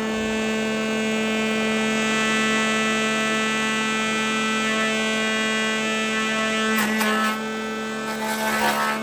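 Electric power tool motor running at a steady speed with a constant whine, with brief bursts of scraping or cutting noise about seven seconds in and again near the end.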